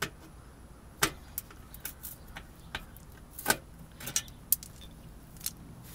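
Screwdriver clicking against a metal quarter-turn fastener on a plastic engine splash shield as it is twisted loose: scattered small clicks and taps, the loudest about three and a half seconds in.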